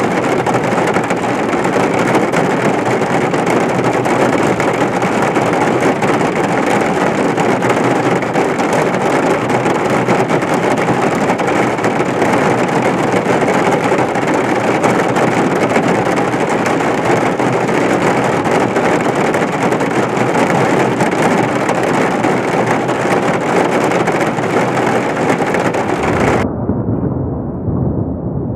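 Heavy rain falling steadily, an even rushing hiss. About 26 seconds in, the hiss cuts off abruptly and only a low rumble of thunder remains.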